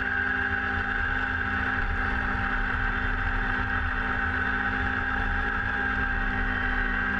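Kubota BX compact tractor's three-cylinder diesel engine running steadily while it drives the front-mounted snowblower throwing snow, with a steady high whine over the engine.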